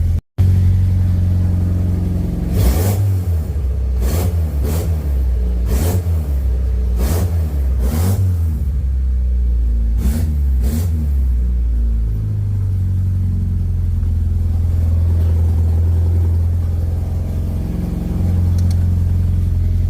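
Mitsubishi Lancer Ralliart's turbocharged 2.0-litre four-cylinder idling with the throttle blipped about eight times in the first half, each blip bringing a short sharp rattle. The owner puts the rattle down to a cracked gasket between the tubular exhaust manifold and the turbo, leaking exhaust under throttle.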